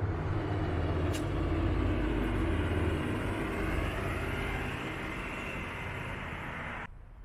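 A passing vehicle: a steady low rumble that swells about two seconds in, then slowly fades, and cuts off abruptly near the end.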